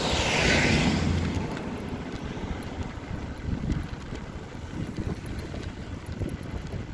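A Mercedes delivery van passing close by, its engine and tyres swelling to a rush and fading within about the first second and a half. After that, wind noise buffets the microphone while coasting downhill.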